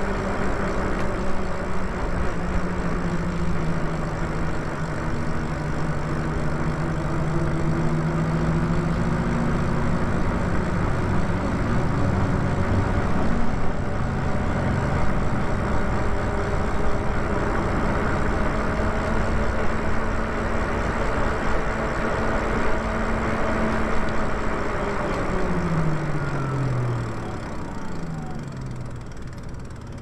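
Electric bike riding at speed: a steady hum-whine from the drive and tyres over wind rush. Near the end the whine slides down in pitch and the sound fades as the bike slows from about 16 mph to a crawl.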